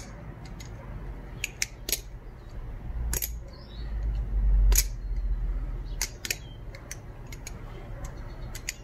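Atropos Kali's Mercy trainer balisong with titanium channel handles being flipped: a dozen or more sharp, irregular clicks as the handles swing on their pivots and meet. A low rumble sits under the middle of it.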